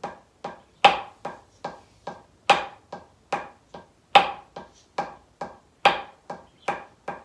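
Drumsticks playing consecutive single paradiddles on a drum practice pad at a slow, even tempo: each group is one loud accented stroke followed by three softer taps, every stroke with a short ring, four groups in all. It is played as a flawed technique, with the accented controlled stroke trapped too late and rebounding too high.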